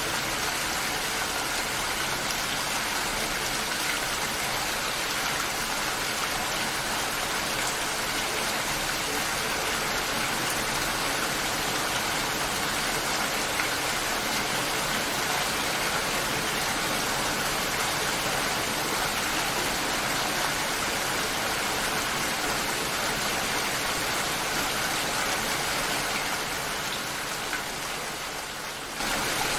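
Steady rain falling, an even hiss of many drops. Near the end it fades a little and then comes back suddenly at full level.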